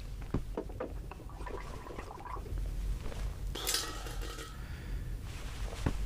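Washing up at a basin: light knocks and handling sounds, with a short splash of water about three and a half seconds in.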